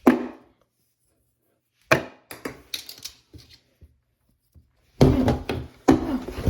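3D-printed plastic throwing knives hitting a target with sharp knocks: one at the start, another about two seconds in, then a few lighter clicks. Louder, continuous noise follows for the last second and a half.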